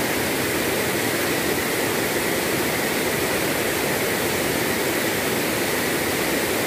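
Rain-swollen river pouring over a small waterfall into a pool: a steady, even rush of water.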